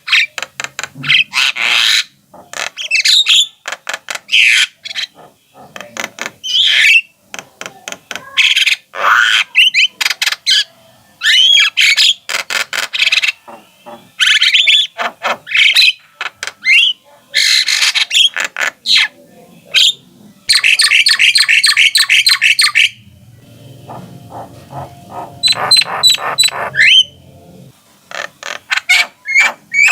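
Javan myna (jalak kebo) singing continuously in a long, varied run of harsh chattering notes, rapid clicks and short whistled glides. A low hum sits under the song for a few seconds past the middle.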